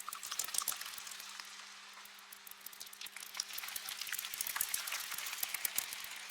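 Bat swarm sound effect: a dense crackle of many short, high squeaks and clicks, swelling in the middle and again toward the end, over a faint steady low hum.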